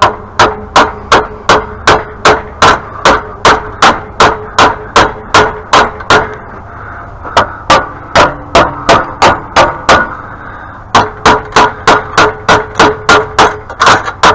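Rapid hammer blows on metal, about three a second, each with a short metallic ring, in runs broken by two brief pauses, while a pressure washer's stubborn parts are being knocked free.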